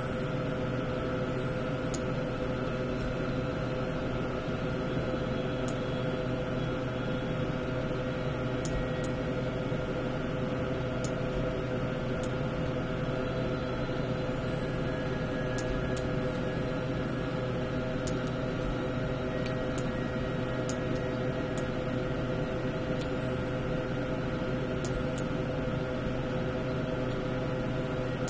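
A steady hum with several held tones over a light hiss, unchanging throughout, with a few faint, sharp clicks scattered through it.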